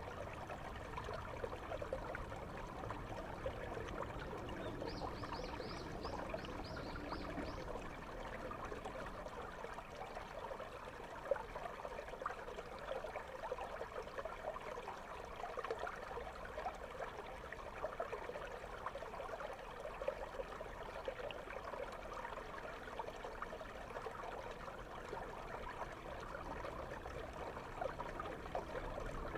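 Shallow river water flowing and trickling over stones, heard through a GoPro held underwater, as a steady crackly bubbling. About five seconds in there is a brief run of quick high chirps.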